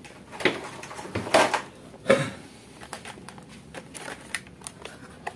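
Handling noises from tools and parts being moved on a workbench: a few short scrapes and knocks in the first two seconds, then lighter, scattered clicks.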